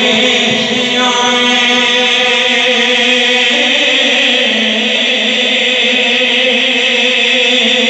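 Islamic devotional chanting amplified through a microphone and loudspeaker system, sung in long held notes that shift in pitch a few times.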